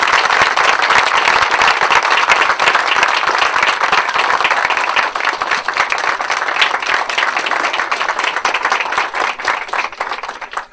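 Audience applauding: a dense round of clapping that tapers off and stops near the end.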